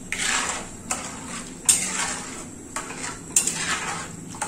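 Metal spatula scraping and clinking against a kadai, in strokes about once a second, as powdered milk is stirred into simmering milk.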